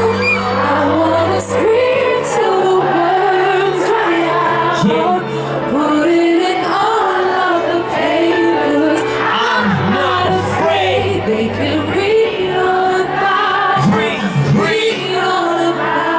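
Pop song with singing and held bass notes, played loud throughout.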